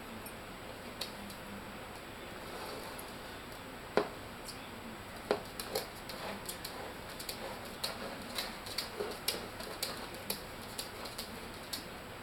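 Ceramic mug clicking and knocking on a hard floor as a baby porcupine noses and paws into it after food: scattered taps, a sharper knock about four seconds in and another a little past five, then quicker irregular ticks, two or three a second.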